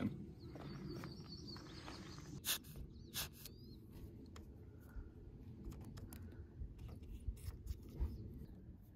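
Small clicks and ticks of a camper door's chrome paddle latch and lock being worked while powdered graphite is puffed into them from a squeeze tube, two sharper clicks about two and a half and three seconds in. A bird chirps briefly just after the second click, over a low outdoor hum.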